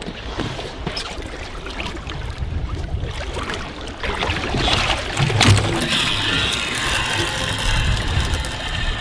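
Water splashing and sloshing against a boat's side, with scattered knocks and clicks, growing louder about four seconds in.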